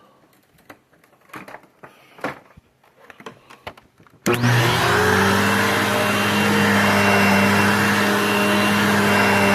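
A few faint clicks and knocks, then about four seconds in the Dirt Devil MVP vacuum cleaner switches on, its motor quickly spinning up to a steady loud run with a hum and a high whine.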